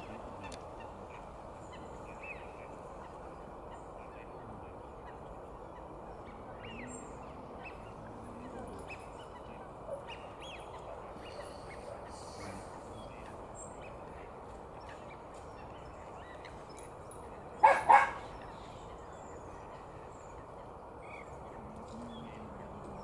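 Waterfowl calling on a lake over a steady low rush of background noise: scattered short calls, and about eighteen seconds in a loud two-part goose honk.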